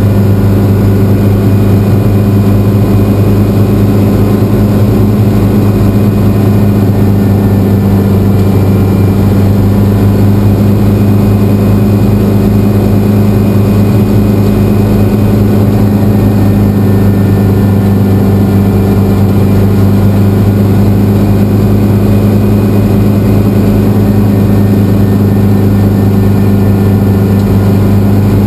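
Light helicopter's engine and rotor running steadily on the ground, heard loud from inside the cockpit as an unchanging low hum.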